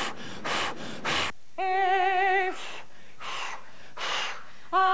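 A woman's vocal warm-up exercise: a few short breathy puffs, then a held sung note with a steady vibrato about a second and a half in, more breathy puffs, and another held note starting near the end.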